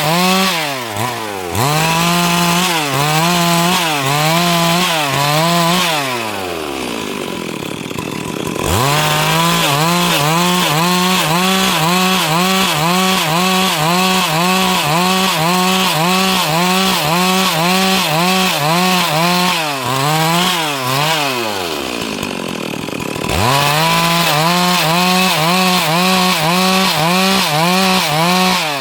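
Stihl MS 382 two-stroke chainsaw running at high revs while cutting wood, its pitch wavering under load. Twice, about six and twenty seconds in, the throttle is let off and the engine falls toward idle, then revs sharply back up.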